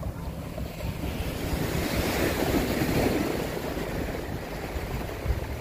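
Surf washing onto a beach, one wave swelling and breaking about two to three seconds in, with wind buffeting the microphone.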